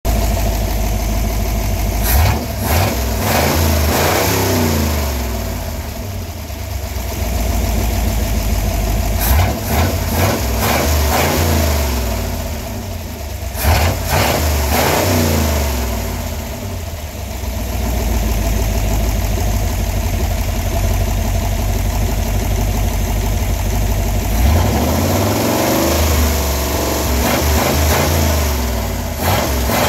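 1957 Ford engine idling and being revved several times, its pitch rising and falling with each blip of the throttle.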